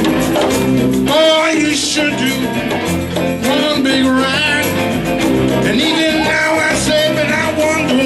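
Live rock band playing: singing over electric guitars, drum kit and congas.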